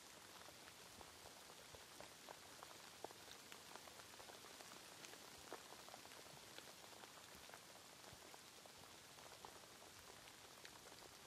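Faint, steady rain: an even hiss with many scattered, irregular drop ticks.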